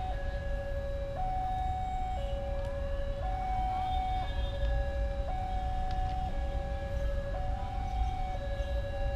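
A two-tone siren alternating steadily between a high and a low note, each held about a second, over a low background rumble.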